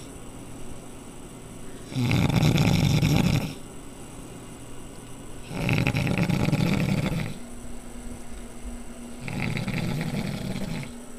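Boston terrier snoring loudly in its sleep: three long snores, each about a second and a half and about three and a half seconds apart, the last one softer, with quieter breathing between them.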